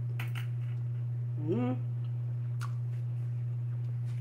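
A steady low hum throughout, with a woman's short rising 'mm' about a second and a half in and a few faint clicks.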